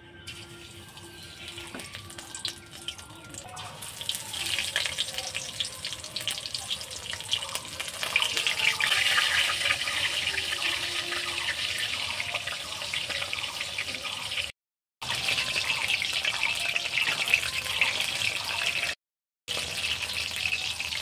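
Batter-coated bok ful (Sesbania flowers) deep-frying in hot oil in a metal kadai: a steady crackling sizzle that starts faint and grows louder after a few seconds as more battered flowers go into the oil. The sound cuts out briefly twice near the end.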